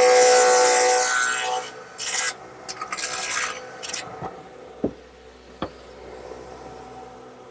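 Radial arm saw with a dado head cutter cutting a rabbet across the end of a wooden rail: a loud cutting noise over a steady whine, which breaks into shorter bursts as the cut is made in passes and stops about four seconds in. A few light knocks follow.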